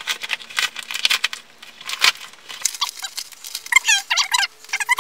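A padded paper mailer envelope being torn open, a quick run of rustling and tearing. From about three seconds in it is joined by a series of high, repeated chirps.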